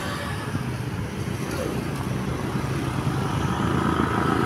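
Road traffic: a motor vehicle's engine running and growing louder toward the end as it approaches, over a steady noise of passing traffic.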